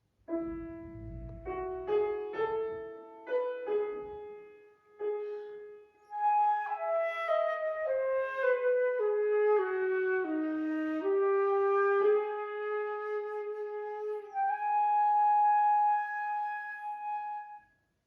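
Concert flute with piano accompaniment playing the closing bars of a classical piece. Low piano chords sound at the start, then flute phrases with a falling run of notes. The piece ends on a long held high flute note that stops cleanly.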